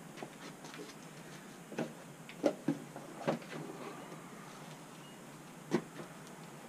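A handful of short, light knocks and clinks of hand tools being handled, the sharpest about two and a half seconds in and another near the end.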